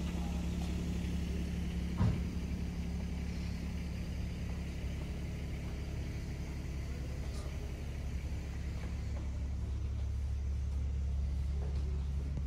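Steady low mechanical rumble, like a running engine or machinery, with a single knock about two seconds in.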